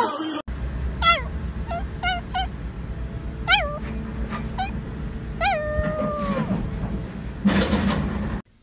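Small dog giving a series of short, high yips and whines, about six in all, the last drawn out into a brief falling howl, over a steady low background rumble.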